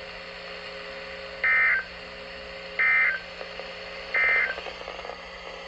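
Emergency Alert System end-of-message signal: three short bursts of SAME digital data tones, each under half a second and about a second and a half apart, over steady radio hiss, marking the end of the weather warning.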